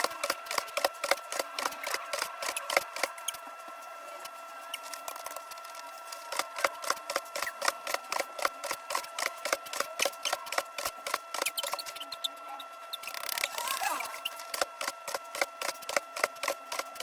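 A fast run of light, sharp taps or clicks, about three to four a second, thinning out for a few seconds partway through, over a faint steady hum.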